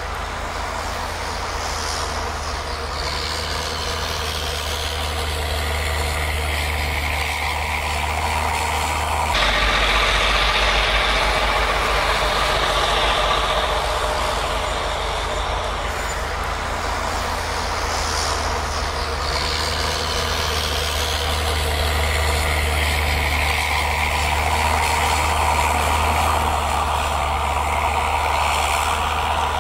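Diesel locomotives of a Union Pacific rotary snowplow train running under load as they pass, a steady low engine drone under a loud rushing noise. About nine seconds in the engine note shifts lower and the sound grows louder.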